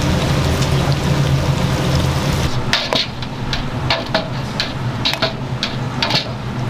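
A steady hiss with a low hum, then from about two and a half seconds in a run of sharp knocks, two or three a second.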